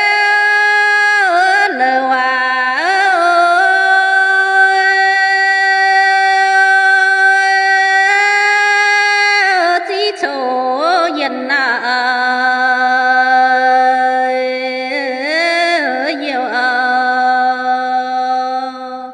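A woman singing a Dao (Yao) hát lượn folk song solo, without accompaniment. She holds long, drawn-out notes linked by wavering glides, and drops to a lower note about ten seconds in.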